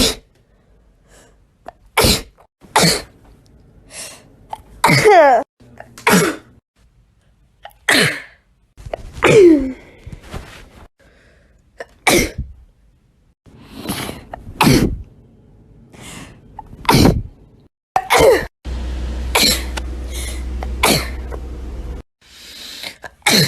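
A rapid string of human sneezes, more than a dozen, each a short sharp burst, some with a voiced 'achoo'. They come one after another with abrupt cuts between them. A steady low hum sits behind a few of them near the end.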